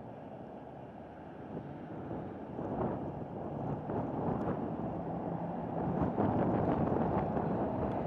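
Strong wind buffeting the microphone in uneven gusts, growing louder about halfway through, with a faint steady low hum underneath.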